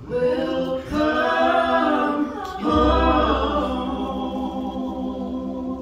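A small gospel singing group singing in harmony: a sung phrase, a brief break about two and a half seconds in, then one long held chord.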